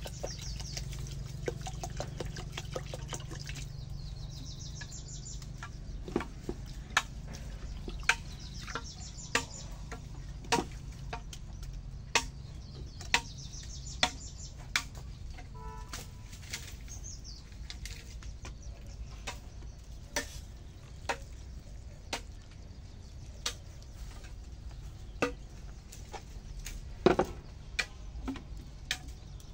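Water poured from a plastic bottle onto raw rice in a small metal pot, then a run of sharp, irregular splashes and knocks about once a second as the rice is washed. Birds chirp now and then in the first half.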